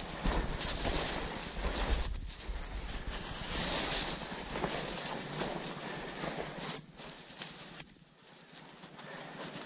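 Footsteps through snow and rustling through gorse and heather scrub, with wind buffeting the microphone. Short, sharp, high-pitched pips come five times: a pair about two seconds in, one just before seven seconds and another pair near eight seconds.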